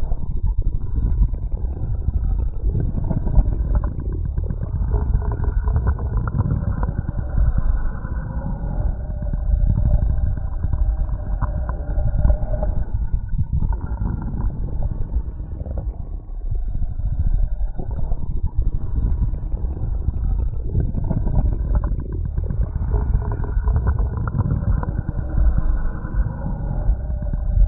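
Internal body sounds picked up by auscultation: a continuous low rumble with wavering higher tones, easing briefly about halfway through.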